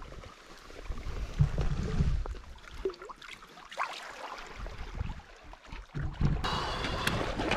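Shallow seawater lapping and splashing against the rocks as a sea bass is let go from the hand and swims off, with wind gusting on the microphone.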